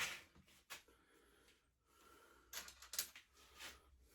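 Near silence, with a few faint short clicks and rustles past the middle.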